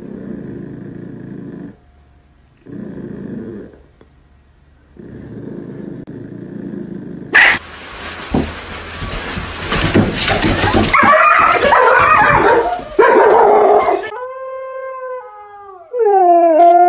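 Dogs vocalizing across quick clips: a few short muffled bursts, a sudden loud knock, then noisy barking and yelping. Near the end a husky howls in long tones that slide down in pitch.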